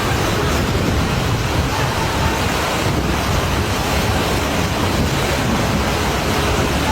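Floodwater rushing past in a loud, steady torrent, with wind buffeting the microphone.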